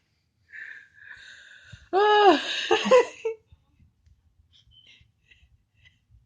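A person wheezing with helpless laughter: a breathy, wheezing inhale, then about two seconds in a loud, high-pitched squeal of laughter lasting a second or so, followed by a few faint clicks.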